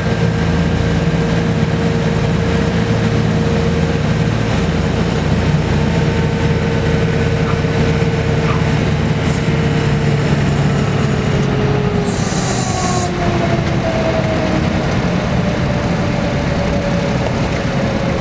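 Douglas DC-3's radial engines heard from inside the cabin, a steady heavy drone as the plane rolls along the runway, with the engine tone slowly falling in pitch as it slows. A short hiss about twelve seconds in.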